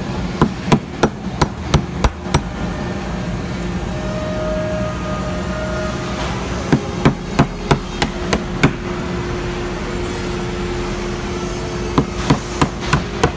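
A hammer tapping a thin scraper blade into the seam between a wooden door panel's bead and its frame, loosening the beading. The sharp taps come in three quick runs of about three a second.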